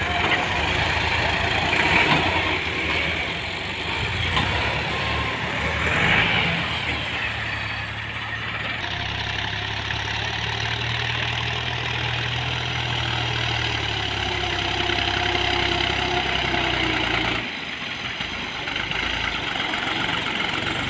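Tractor diesel engine running, its note shifting unevenly at first, then holding steadier before dropping back near the end.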